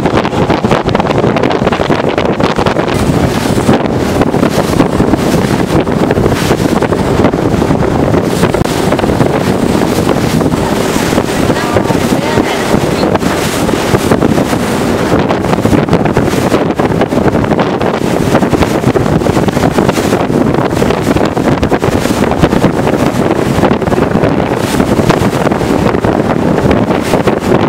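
Wind buffeting the microphone on the deck of a moving cruise boat: a loud, steady rush with constant gusty flutter.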